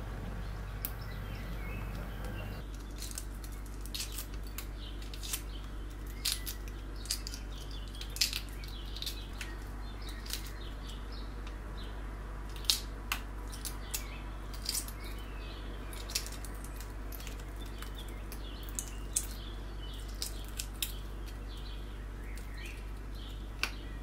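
Hard-boiled egg being peeled by hand: irregular small clicks and crackles as the shell cracks and comes away, over a steady low hum. In the first couple of seconds the water boiling around the eggs is heard.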